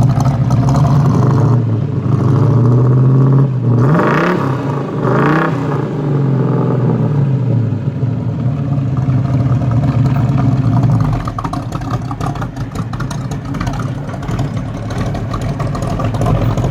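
A V8 muscle car engine running loudly, blipped a few times around four to six seconds in so the pitch rises and falls quickly, then settling back to a rough, lumpy run.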